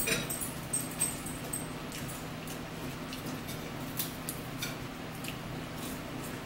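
Eating at a table: scattered light clicks and taps of cutlery and food on plates, over a steady low hum.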